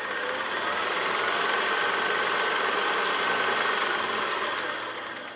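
Old film projector sound effect: a steady, rapid mechanical clatter with a faint whine, swelling up at the start and fading out near the end.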